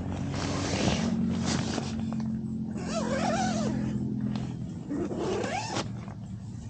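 Tent nylon and bedding rustling in repeated bursts as someone moves about inside a tent, over a steady low hum. Two wavering, sliding cries come through, one about three seconds in and one near five seconds.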